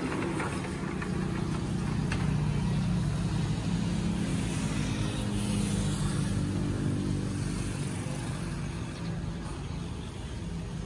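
Road traffic: a motor vehicle's engine running with a steady low hum, swelling in the first second and easing off slightly near the end.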